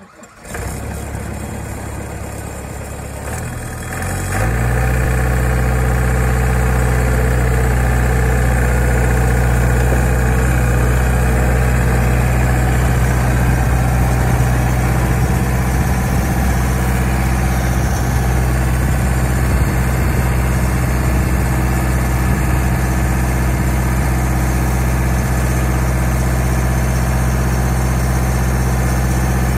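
Rayco RG50 Super stump grinder's engine running at a low speed, then throttled up about four seconds in and running steady at a higher speed.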